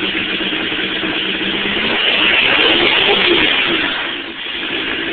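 Four-cylinder car engine running on only a 4-into-1 exhaust header with no muffler, with a deep, throaty rumble at idle. It is revved up about two seconds in and drops back to idle near the end.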